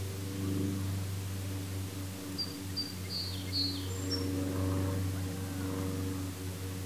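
Steady low hum of a distant engine. About halfway through, a bird gives four or five short, high chirps.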